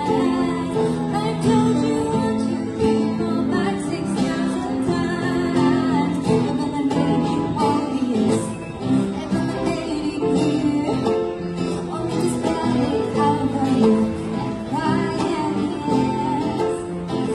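Live acoustic trio: a woman singing into a microphone, with upright piano and acoustic guitar accompanying her.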